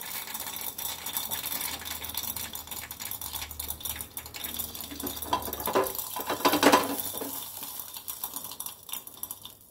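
Mustard seeds popping in hot oil inside a small tadka pan covered with a steel lid: a dense run of quick crackles and ticks that thins out near the end.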